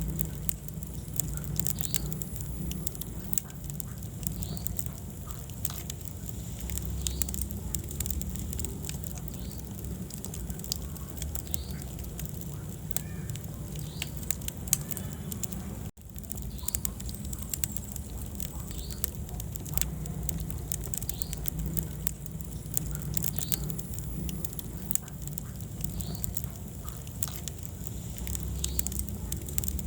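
Wood fire burning in a fireplace: irregular crackles and pops over a steady low rumble of flames. The sound drops out for an instant about halfway through.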